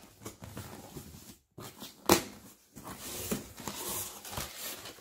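Cardboard shipping box being opened by hand: scattered rustling and scraping of cardboard and packing, with one sharp, louder sound about two seconds in.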